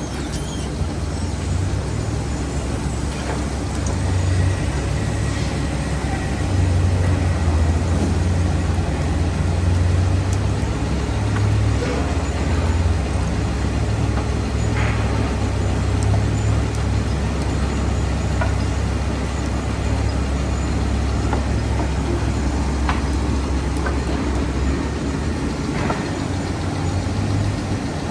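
Wood bandsaw running, a steady motor hum with a noisy whir over it.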